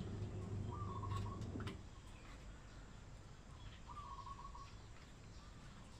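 A low steady hum that stops about a second and a half in, then two short trilled animal calls about three seconds apart, with a few faint clicks.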